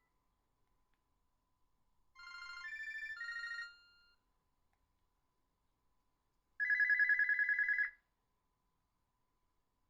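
Ringtone previews playing from an HTC Faraday (Cingular 2125) phone's speaker. First comes a short electronic melody of a few notes. A few seconds later comes a single-pitched, fast-warbling ring like an old telephone bell, lasting just over a second.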